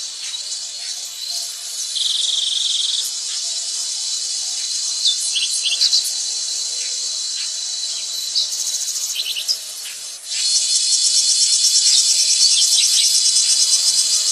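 Chorus of insects trilling, with a few short high chirps; a louder, fast-pulsing trill starts about ten seconds in.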